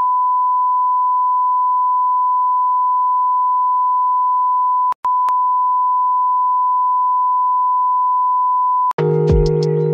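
A steady, unbroken electronic beep tone, like a test tone, cut off briefly about five seconds in and then resuming. Background music starts about a second before the end.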